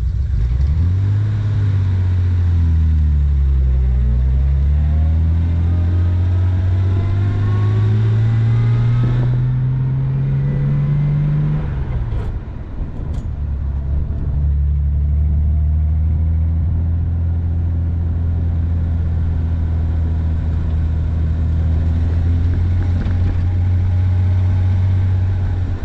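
The 1961 Jaguar E-Type Series 1's 3.8-litre straight-six engine pulls away under acceleration. Its note rises, dips about four seconds in, climbs again until about twelve seconds in, then drops off briefly and settles to a steady running note.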